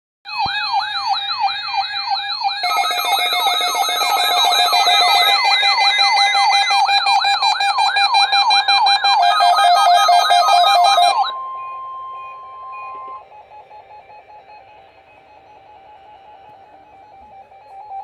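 Several NOAA weather alert radios sound their alarms together: layered warbling tones that sweep up and down about two to three times a second, set off by the weekly test's warning alarm tone. The alarms cut off about eleven seconds in. A steady single tone follows for about two seconds, then a fainter steady tone.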